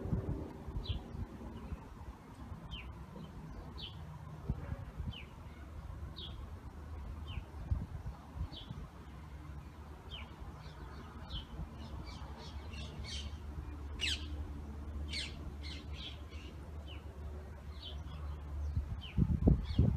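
Small birds calling outdoors: a short, high, falling chirp repeated about once a second, with a quicker run of brighter calls in the middle. A steady low rumble runs underneath, and a few low thumps come near the end.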